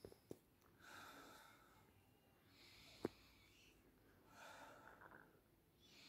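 A person breathing slowly and deeply in and out several times, faintly, as is done for a stethoscope examination of the lungs. There are a few short, sharp clicks near the start and one about three seconds in.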